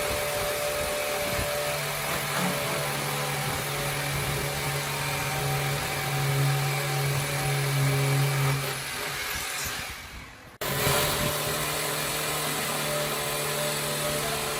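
A power tool's electric motor running steadily with a whining hiss. It dies away about ten seconds in and then cuts back in abruptly.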